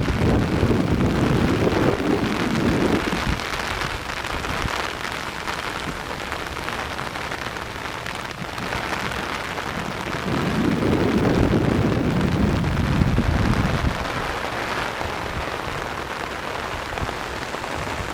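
Heavy rain pouring down steadily in a tropical storm. A low rumble swells twice, for about four seconds each time, at the start and again past the middle.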